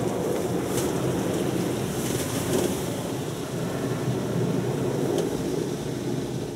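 Ryko US2001 touch-free car wash gantry spraying triple foam onto the car, heard from inside the cabin as a steady rushing wash of liquid on the body and glass. It swells at the start and eases slightly near the end.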